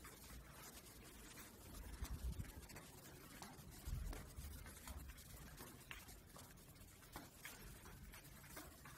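Faint rubbing and a few soft low thumps from a handheld phone being carried through quiet rooms. Otherwise near silence.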